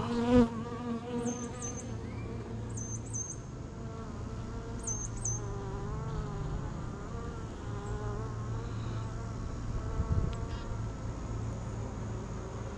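Honeybees buzzing around an opened hive: a steady low hum, with the pitch of single bees wavering as they fly close past. A soft knock about ten seconds in.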